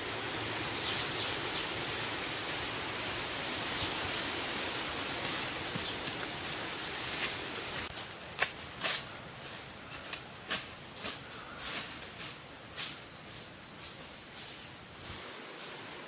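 A steady outdoor rushing noise fills the first half. From about seven seconds in, it gives way to footsteps and rustling through dry leaves and undergrowth, with irregular sharp crackles. Near the end a faint high steady tone comes in.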